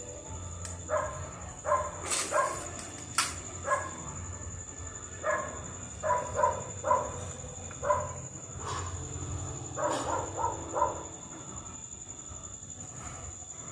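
A dog barking in short irregular runs, over a steady high tone and a low hum, with two sharp clicks about two and three seconds in.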